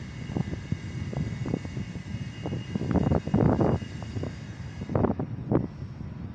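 A steady mechanical drone with a whine, broken by irregular knocks and thumps that cluster loudest about three seconds in.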